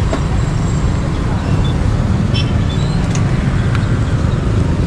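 Steady rumble of street traffic, with vehicles passing on a busy road.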